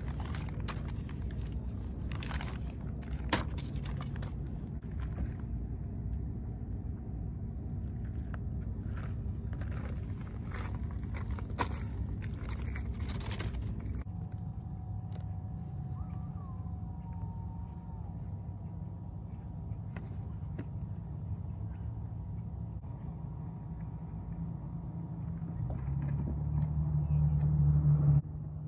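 A steady low outdoor rumble. Over the first half come scattered sharp clicks and knocks of fishing gear and a folding chair being handled. Near the end the rumble swells loudly and then cuts off suddenly.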